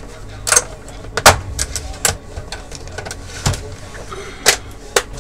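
Sharp plastic clicks and knocks, about six at irregular intervals, as a stand part is pushed into place and screwed onto the plastic back cover of a Dell E177FPb LCD monitor with a screwdriver. A low steady hum runs underneath.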